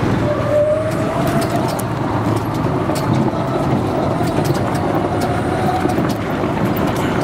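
Ride noise of a golf cart on the move: a steady rumble of tyres and motor, with a faint whine that drifts slightly higher and scattered small clicks and rattles.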